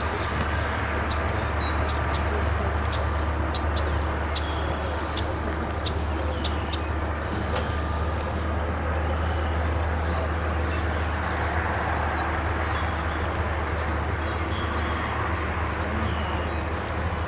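Steady low outdoor rumble with an even background hiss, with faint short high chirps scattered through it.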